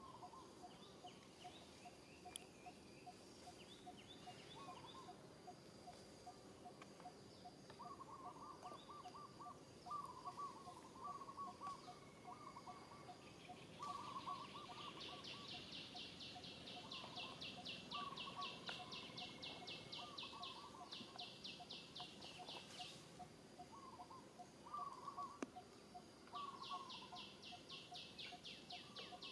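Faint outdoor ambience of birds and insects. A ticking call repeats steadily a couple of times a second and short chirps come and go, while a fast, high pulsing insect trill sets in about halfway through, breaks off, and returns near the end.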